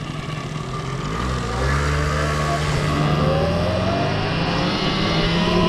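Electric enduro motorcycle pulling away and speeding up: its motor whine climbs in pitch from about a second in, over a broad rush of wind and tyre noise.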